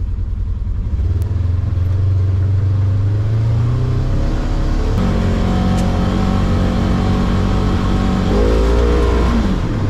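Polaris Ranger 900 XP side-by-side's twin-cylinder engine pulling as the machine drives, heard from inside its open cab. The engine note climbs over the first few seconds, holds steady, then changes briefly near the end.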